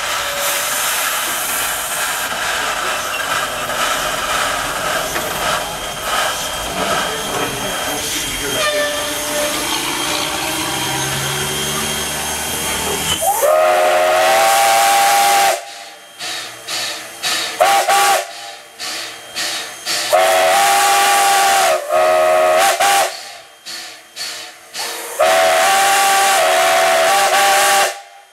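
Steam hissing steadily from Canadian National 2-6-0 steam locomotive #89 as it runs. About halfway in, its steam whistle sounds a series of long and short blasts, the last one long.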